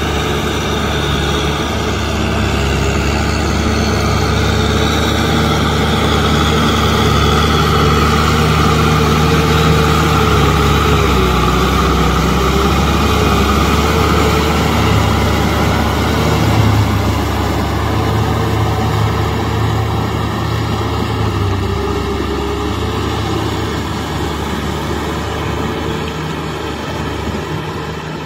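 Kubota M6040SU tractor's diesel engine running steadily under load as it pulls a rotary tiller through deep mud. It grows louder as the tractor passes close about halfway through, then fades as it drives away.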